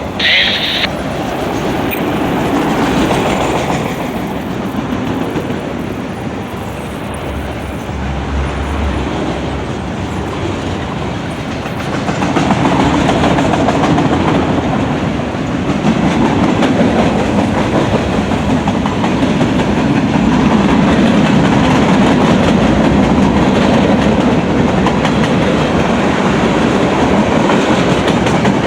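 Manifest freight train's cars rolling past, steel wheels clicking over the rail joints; the rumble gets louder about twelve seconds in.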